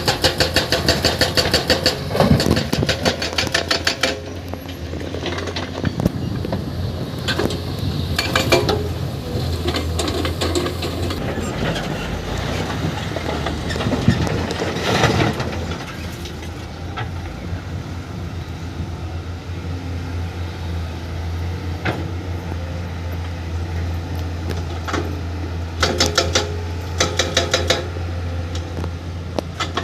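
Heavy diesel excavator working, its engine running steadily under metallic clanking and scraping. Fast rattling clatter comes in the first few seconds and again near the end.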